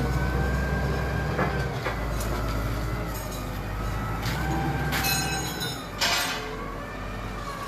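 Forklift engine running under a heavy low rumble, with a whine that rises, holds and falls away twice. A few sharp knocks break in, the loudest about six seconds in.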